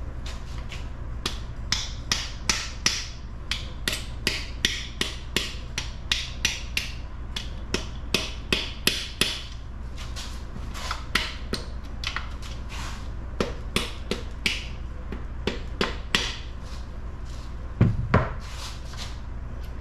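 Repeated hammer blows on metal engine parts during a small-block teardown: sharp separate knocks about two a second, uneven, with two louder knocks near the end. They sit over a steady low hum.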